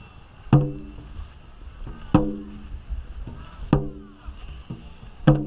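Dragon boat drum struck four times at an even beat about every one and a half seconds, each hit a sharp knock with a short, low ringing boom that dies away, setting the paddling stroke. Water splashes and swishes from the paddles between the beats.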